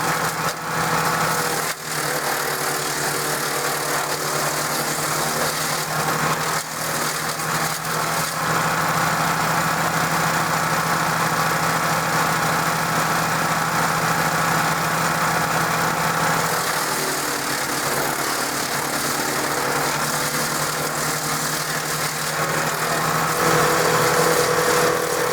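DR 16.5 self-feeding wood chipper's Briggs & Stratton engine running steadily, with a couple of brief knocks in the first few seconds and a change in its note about seventeen seconds in.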